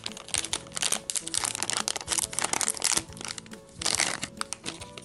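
Plastic foil blind-bag wrapper crinkling and crackling as it is torn open and unfolded by hand, over quiet background music.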